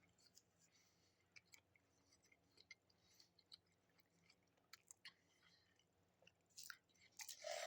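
Faint, soft chewing of a mouthful of sub sandwich, with scattered small wet clicks and crunches, a little louder near the end.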